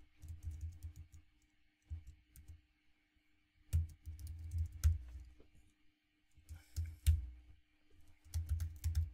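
Typing on a computer keyboard in several short bursts of key clicks with brief pauses between them.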